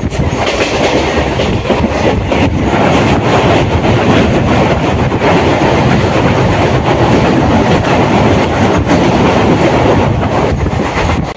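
DEMU passenger train running at speed, heard from on board: a loud, steady rumble and rush with scattered clacks from the wheels over the rail joints.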